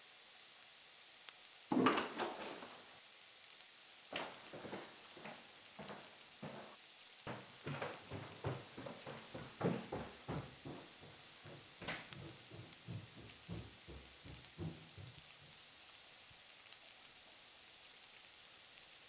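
Food sizzling faintly in a frying pan while a wooden spatula stirs it, making a string of irregular taps and scrapes against the pan. A louder knock comes just under two seconds in.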